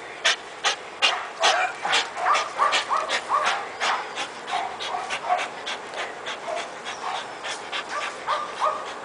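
Bull terrier breathing hard in quick rhythmic huffs, about three a second, from the exertion of hanging by its jaws on a spring pole, with short high squeaks mixed in. The huffs grow fainter in the second half.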